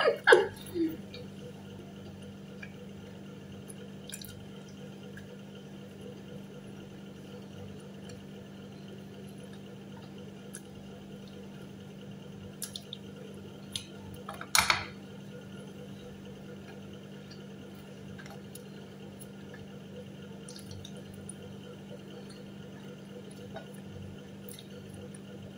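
Quiet eating at a table: a steady low room hum with a few soft clicks, and one louder, brief clatter about halfway through as pizza is handled on the plate.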